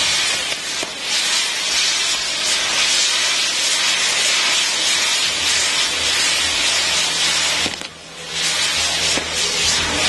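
Maltese ground fireworks: the spark-spraying drivers on the spinning firework wheels hiss loudly and steadily. The hiss drops out briefly about eight seconds in, then starts again.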